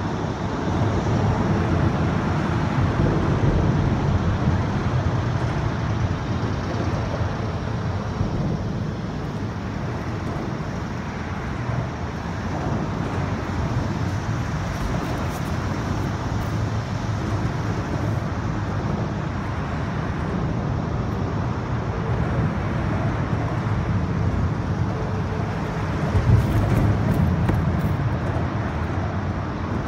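Steady rumble of road traffic on the elevated highway overhead, with no distinct events, swelling briefly near the end.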